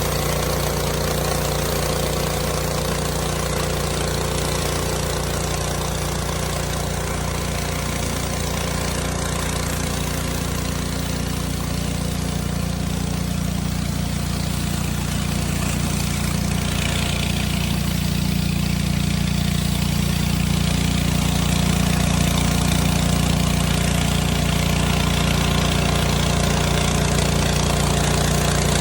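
Gas-engine pressure washer running steadily, with the hiss of water spray from the surface cleaner.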